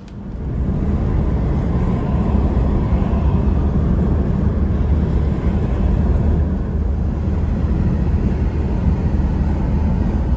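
Steady, loud rumble of road and wind noise from a vehicle driving at speed on a highway, heaviest in the low end.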